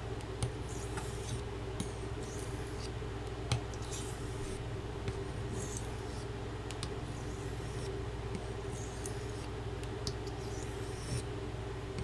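Carbon-steel knife blade stroked across an Arkansas sharpening stone with light pressure, a soft scraping hiss on each pass about every second or so, with small clicks between strokes. A steady low hum runs underneath.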